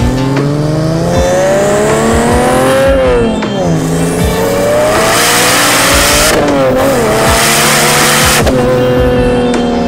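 A car engine accelerating hard through the gears, its pitch rising and then dropping at gear changes about three and six and a half seconds in.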